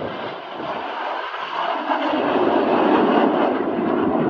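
Jet noise from BAE Hawk T1 aircraft flying overhead: a broad rushing roar that swells about two seconds in and stays loud.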